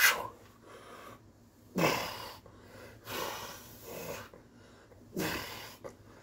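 A man breathing hard as he presses dumbbells overhead, with a forceful exhale at each rep, about every second and a half.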